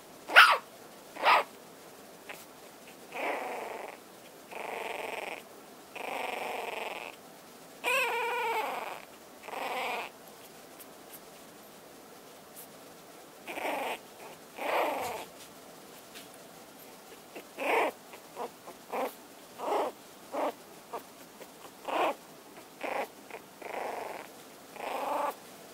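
Young puppies squeaking and whimpering, with two sharp yelps at the start and a wavering whine about eight seconds in. Breathy, snuffling sounds about a second long each fall between the cries, and short squeaks come thick and fast near the end.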